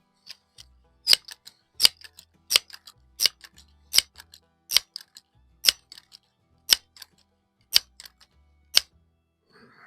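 Crosman 1322 multi-pump air gun being pumped between shots: a steady run of about ten sharp clicks, roughly one every three-quarters of a second, with fainter clicks between them.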